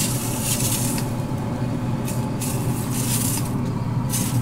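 Hand-pump spray bottle hissing out a fine mist in several short sprays with brief pauses, over a steady low hum.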